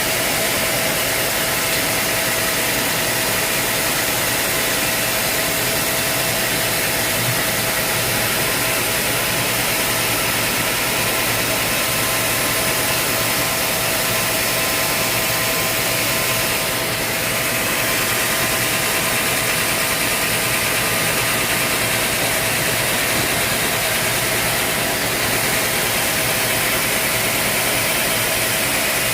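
Sawmill machinery running steadily, a constant mechanical noise with a steady whine under it.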